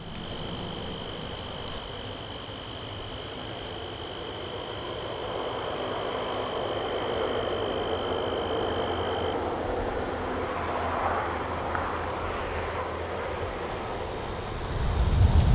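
Meadow ambience: a steady high-pitched insect trill that stops about nine seconds in, over a wash of other insect noise, with a low rumble on the microphone near the end.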